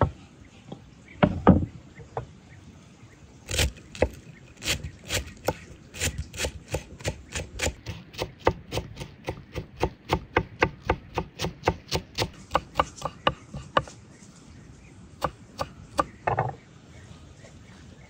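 Kitchen knife chopping fresh parsley and dill on a wooden cutting board: a long run of sharp knocks that quickens to about four strokes a second, stops about three-quarters through, then a few more strokes.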